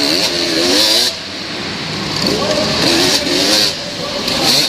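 125cc motocross bike engine revving up and down as the throttle is worked through the turns, heard close from a camera on the bike. The throttle is chopped briefly about a second in and again near the end.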